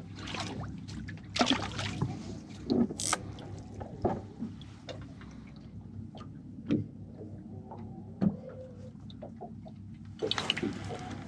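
Boat-deck ambience: water lapping gently at the hull under a low steady hum, with scattered light knocks and clicks from gear being handled.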